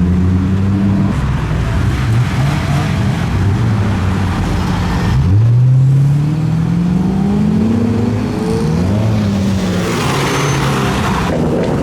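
Car engines running as cars pull away, with a modified car revving and accelerating hard about five seconds in, its pitch rising, and more engines revving and easing off afterwards.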